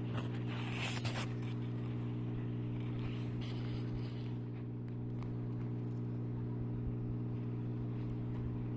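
Cloth snake bag and packing rustling as it is handled and a ball python lifted out, loudest about a second in and again briefly around three and a half seconds. A steady low electrical hum runs underneath.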